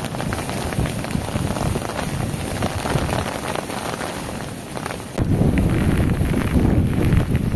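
Rain falling, many small drop ticks over a steady hiss; about five seconds in it gives way to the louder, deeper rush of muddy floodwater.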